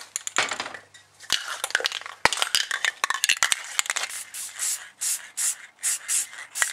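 Aerosol spray can of clear coat being handled with clicks and scrapes, then shaken. From about four and a half seconds in, its mixing ball rattles in a steady rhythm of about three strokes a second.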